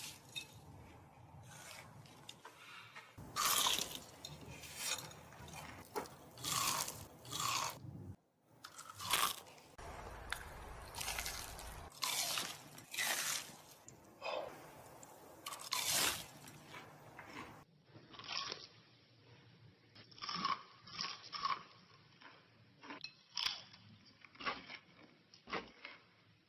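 People chewing and biting into crunchy food, close to the microphone. Loud, irregular crunches come about once a second, and the sound quality changes abruptly a few times where separate clips are cut together.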